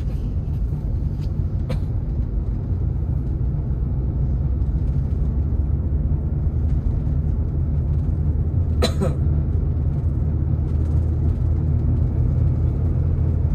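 Steady low rumble of engine and road noise inside a moving car's cabin, with one short sharp sound about nine seconds in.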